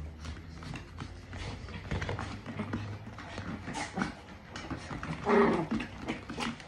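Small dogs, chihuahuas and a poodle, play-fighting: their claws skitter and tap on a laminate floor, and one dog gives a short growly vocal about five seconds in.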